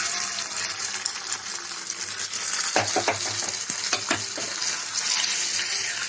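Hot ghee with fried cinnamon, cloves, cardamom and dry fruits sizzling as it is poured over the cake halwa, a loud steady hiss, with a few clinks of a spoon in the middle and the sizzle starting to fade near the end.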